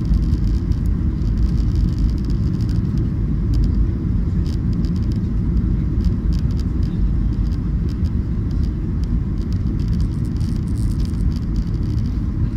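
Steady low rumble of a Boeing 737's engines and airflow heard inside the passenger cabin in flight.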